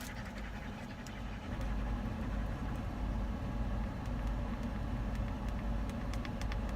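Steady low rumble of a car heard from inside the cabin, growing a little louder about a second and a half in, with a few faint ticks.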